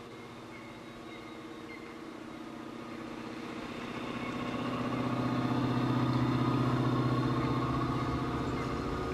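Diesel locomotive engines of a passenger train running steadily in a low drone. It grows louder as the train approaches, is loudest about six to seven seconds in, and eases a little near the end.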